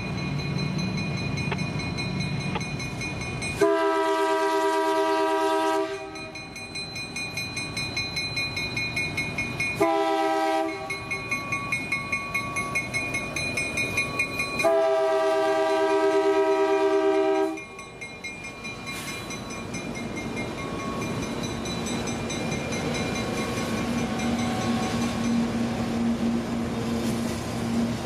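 Freight locomotive air horn sounding three blasts, long, short and long, over a slowly rolling loaded tank-car train whose wheels click rhythmically, about three a second, over the rail joints. A bell rings through the first half.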